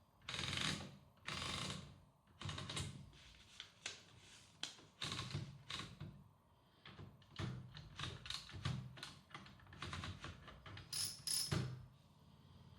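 Hammond Multiplex typewriter being operated: an irregular run of mechanical clacks and clicks from its typing action. There are two loud strokes in the first two seconds and two sharper, higher-pitched strikes about eleven seconds in.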